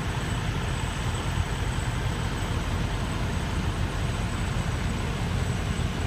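Idling dump-truck engines: a steady low rumble that holds even throughout.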